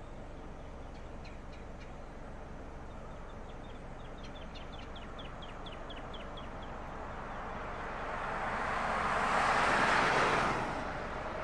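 A pickup truck coming along the road, its tyre and engine noise swelling to a peak about ten seconds in and easing as it goes by. Earlier a small bird gives a run of quick, short chirps, about three a second.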